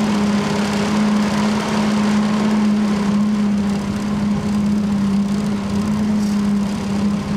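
Small boat's motor running at a steady speed, a constant-pitched drone that doesn't change.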